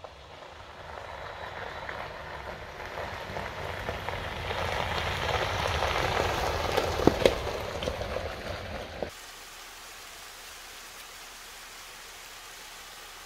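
Jeep Wrangler driving past on a gravel road: engine and tyres crunching on gravel, growing louder to a peak as it passes, with a few sharp clicks of stones. About nine seconds in it cuts off abruptly to the steady rush of a small waterfall.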